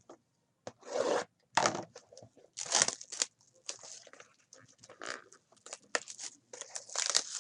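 Plastic wrapping being torn and crinkled in a run of irregular short rasps, louder in the first few seconds, as a box of trading cards is opened.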